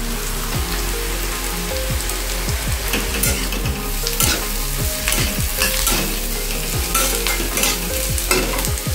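Onions, potatoes and dried fish frying in oil in a stainless steel kadai, sizzling steadily while a metal spatula stirs and scrapes the pan in repeated strokes, about one or two a second. The onions are browning, with garlic just added.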